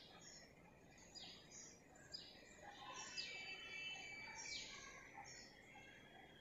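Near silence, with faint high bird chirps repeating every second or so.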